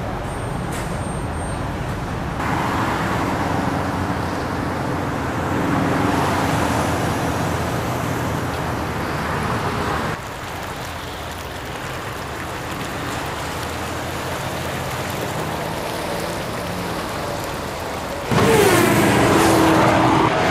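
Steady city traffic noise. It drops abruptly to a quieter hum about halfway through, and near the end a car passes close by, suddenly much louder, its pitch falling as it goes.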